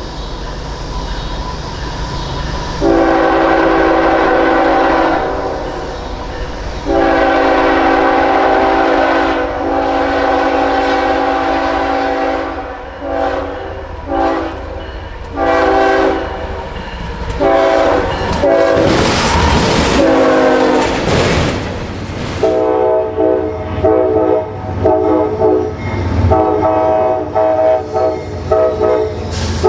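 Multi-chime air horn of a locomotive played as a horn show. There is a long blast about three seconds in and a longer one after it, then a series of shorter blasts, a loud rushing noise near the middle, and a rapid string of short toots to finish.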